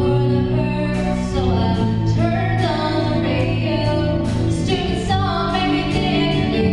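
A woman singing a country ballad into a microphone, with a live band of guitars, drums and keyboard backing her, amplified through the hall's PA.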